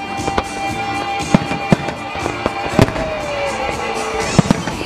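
Fireworks shells bursting in rapid succession during a finale, many sharp bangs with the loudest about three seconds in and near the end, over music played along with the show.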